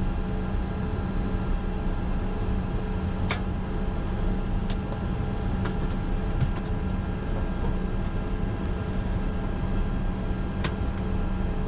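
Cockpit noise of a Bombardier Challenger 605 with its GE CF34-3B turbofans still running at idle: a steady low rumble with a constant hum. Four short sharp clicks come through it, two early on, one a little later and one near the end.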